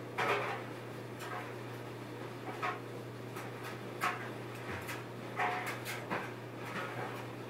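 Hair-cutting scissors snipping through hair, a short crisp snip every second or so, over a steady low hum.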